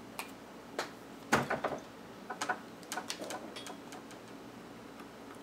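Light clicks and taps of soldering tools being handled, a soldering gun and a flux pen picked up and moved over the solar cells. A scatter of sharp ticks, the loudest about a second and a half in, then a few small clusters of clicks.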